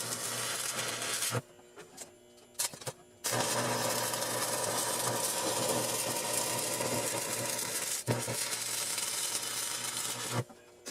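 Stick welding arc crackling and sizzling, run at 100 amps DC electrode negative from a Miller Syncrowave 250. The arc goes out about a second and a half in, sputters briefly as it is struck again, then burns steadily for about seven seconds, faltering once near the end, before stopping.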